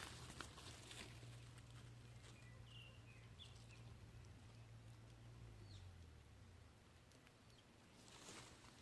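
Faint outdoor ambience: a low, steady distant hum that fades out about six seconds in, a few brief bird chirps about three seconds in, and a soft rustle near the end.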